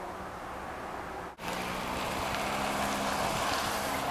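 Steady outdoor wind-like noise, broken off suddenly about a second and a half in. After the break comes a slightly louder steady parking-lot ambience: road traffic and car engines with a low hum.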